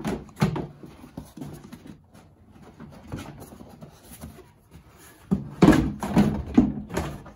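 Plastic footwell panel of a Honda ATV being handled and fitted into place: scattered plastic knocks and rattles, with a louder run of knocks and bumps about five seconds in.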